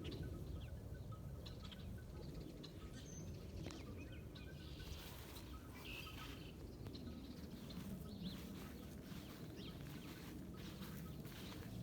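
Wind buffeting the microphone as a steady low rumble, with faint, scattered bird chirps over it.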